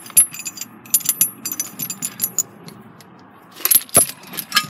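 Steel lifting chain and shackles clinking and rattling as they are unhooked and handled, in two bouts of clinks, with a heavier clank about four seconds in.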